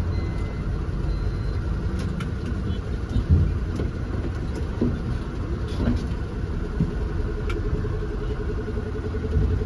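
Diesel lorry engine running at low speed, heard from inside the cab as the truck slows and pulls off the road, with a few short knocks along the way.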